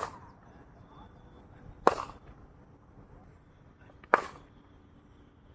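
Cricket ball struck by a bat: three sharp knocks about two seconds apart, the first right at the start, each with a short ring.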